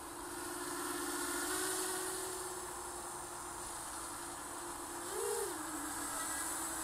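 250-size FPV racing quadcopter's brushless motors and 5-inch props humming steadily as it flies low, with a brief throttle burst about five seconds in that raises the pitch and loudness.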